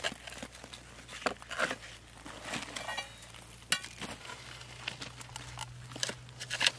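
Boots crunching on gravel, with scattered knocks and clinks of stone, wood and an iron pry bar as a heavy stone block is levered up over a wooden block. Sharp clinks about a second in, near the middle and near the end are the loudest.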